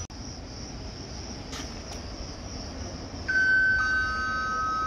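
Station public-address chime: a higher tone sounds about three seconds in and a lower one half a second later, both ringing on together for about two seconds, the signal that a platform announcement follows.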